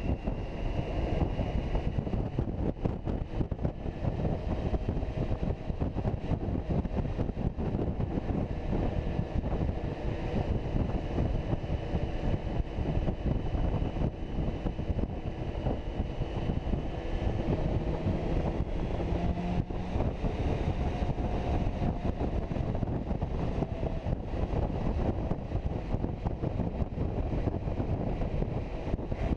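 Wind rushing steadily over the microphone of a touring motorcycle riding at road speed, with the engine's faint drifting hum beneath it.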